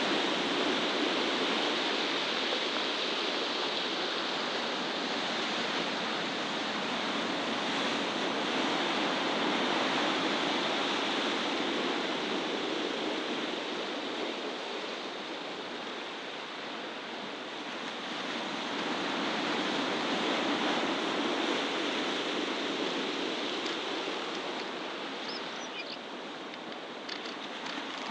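Steady rushing outdoor noise that swells and eases slowly, with a few faint high chirps near the end.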